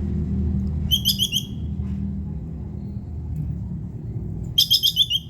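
Plantain squirrel giving its chattering 'kekes' alarm call: two quick bursts of five or six sharp, high notes, about a second in and again near the end, over a steady low rumble.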